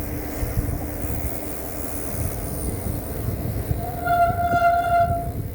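Wind and rolling rumble while riding, and about four seconds in a horn sounds once, a single steady note held for about a second and a half.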